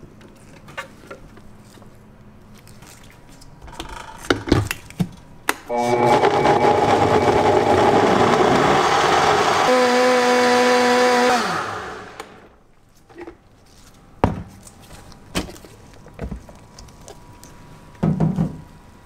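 Countertop blender puréeing tomatoes, basil and milk into a liquid gelato base: a few knocks of the jar and lid, then the motor runs hard for about six seconds, settling into a steady whine near the end before spinning down. More knocks of the jar follow.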